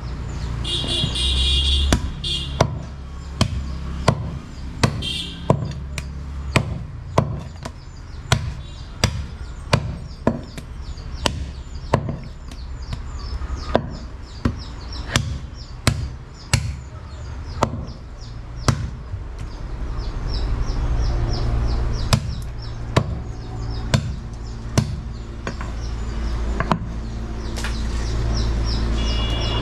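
Heavy butcher's cleaver chopping goat meat and bone on a thick round wooden chopping block: sharp, loud chops at about one a second, with a few short pauses.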